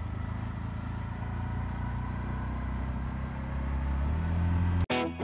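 Tuk-tuk engine running with road noise, heard from on board. The engine note rises shortly before the end as it speeds up, then the sound cuts off abruptly into guitar music.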